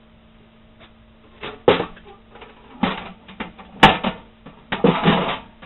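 Irregular sharp knocks and clanks, about five, from working on a steel ammo can and its parts, the sharpest a little before the middle.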